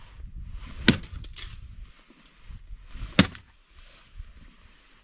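Axe chopping firewood: two sharp strikes of the blade into a log, a little over two seconds apart.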